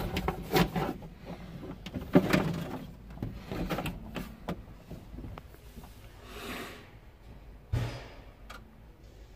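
Scattered knocks and clunks of shop work heard from inside a sprayer cab, with a soft hiss swelling about six and a half seconds in and a heavier thump near eight seconds.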